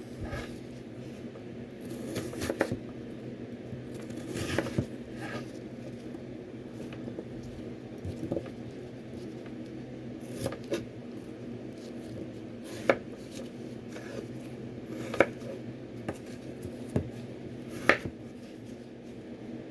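Kitchen handling sounds: scattered sharp clicks and knocks of utensils, containers and dishes being picked up and set down, about eight in all, over a steady low hum.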